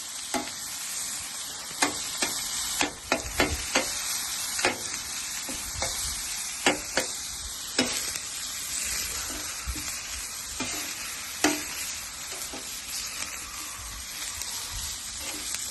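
Cheesesteak meat sizzling on a thick steel flat-top griddle plate, a steady hiss, with repeated sharp clicks and scrapes of a spatula against the plate as the food is stirred.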